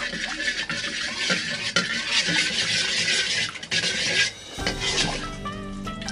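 A metal ladle stirring and scraping in a pan of hot, bubbling sugar-and-oil caramel: a dense sizzling hiss full of sharp metal clicks. About four and a half seconds in this gives way to background music, with liquid being poured into the pan near the end.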